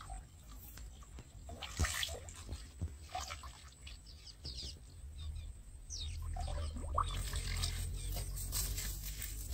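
A hooked fish splashing and thrashing in shallow canal water, in short irregular splashes, over a low rumble of wind on the microphone.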